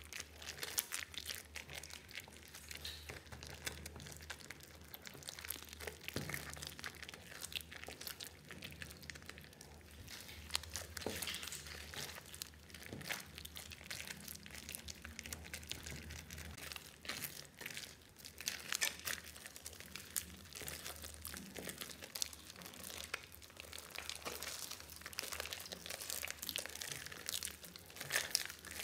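Hands squeezing and kneading a lump of foamy, freshly mixed clear slime in a glass bowl of water: a continuous run of wet squelches, pops and crackles. A faint low hum runs underneath.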